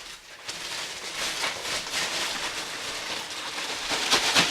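Rustling and shuffling noise with many small scrapes, growing louder toward the end, from household things being handled and moved about.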